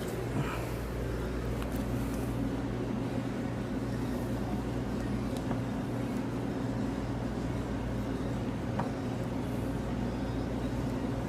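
Steady low machine hum with no change in level, with a few faint clicks or taps over it.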